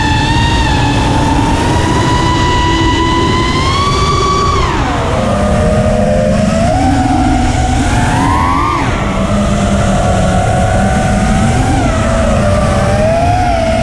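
Four T-Motor F40 Pro III 2400kv brushless motors of an FPV freestyle quadcopter screaming, recorded on the quad itself, with wind rush underneath. The pitch follows the throttle: it climbs for about four seconds, drops sharply about five seconds in, surges again near nine seconds and falls back.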